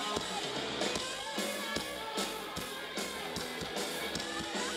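Rock band playing live: amplified electric guitars strummed over a steady drum beat, with no singing.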